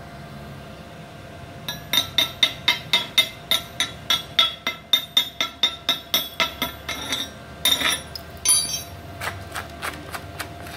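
Chipping hammer knocking slag off a freshly welded stick-weld bead on a steel plate: rapid, ringing metallic strikes about four a second, then a short scrape and a few lighter taps near the end.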